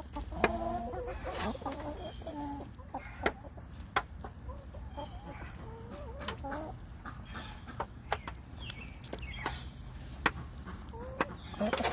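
Flock of hens clucking with short, repeated calls, some rising or falling in pitch, with sharp clicks scattered throughout.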